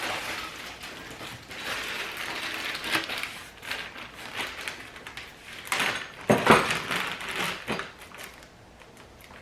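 Handling noise as plastic mower handle parts are fitted together: uneven rustling and scraping with a few clunks and rattles, the loudest knocks about six to seven seconds in.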